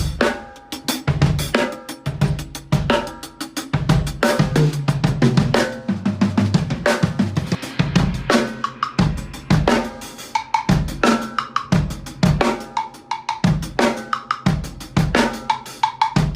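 Tama Starclassic acoustic drum kit played continuously: bass drum, snare, hi-hat and cymbal strokes in a steady groove, unprocessed raw sound.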